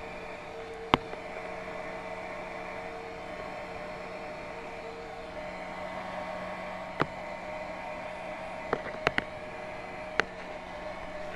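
Heat gun blowing hot air steadily, shrinking heat-shrink tubing over a speed controller's circuit board. A few sharp clicks from handling are heard, one about a second in and several more in the second half.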